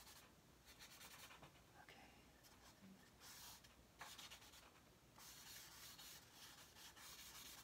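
Stick of charcoal scratching and rubbing across drawing paper in faint, irregular strokes with short pauses between them, blocking in a form.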